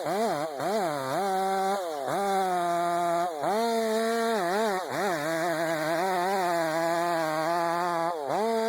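Chainsaw running at high revs while cutting wood, its engine pitch sagging and recovering over and over as the chain bites in and frees up.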